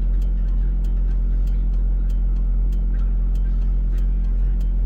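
Tow truck engine idling with a steady low drone, with a string of light, sharp clicks a few times a second from the four-way hazard flasher.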